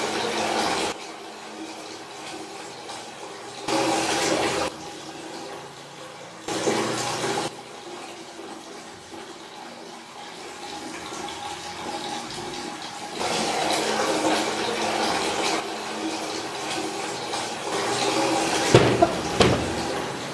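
Rushing water in abrupt bursts: three of about a second each, then a longer stretch of several seconds. A few sharp knocks come near the end.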